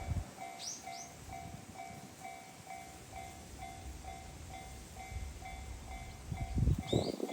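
Japanese level crossing warning bell ringing, about two dings a second, over a low rumble that swells near the end. A bird chirps a few times about a second in and again near the end.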